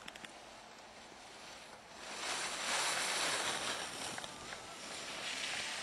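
Skis carving across snow as a racer passes close by: a rising hiss of ski edges that peaks about three seconds in and swells again near the end.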